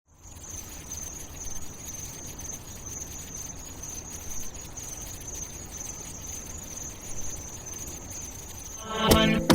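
Insects chirring steadily in one high-pitched band, over a low rumble. Music with a heavy beat comes in about nine seconds in.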